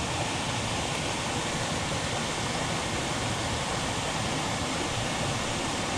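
Steady rush of a small stream running over rocks, even and unbroken.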